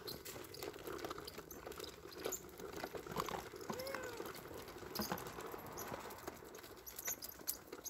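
Footsteps on a paved pavement: light, irregular taps of shoes while walking, with small rustles in between.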